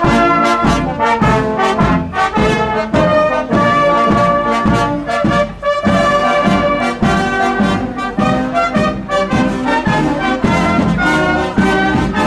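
A brass band marching and playing a march: cornets, flugelhorns and horns over a steady beat of about two strokes a second.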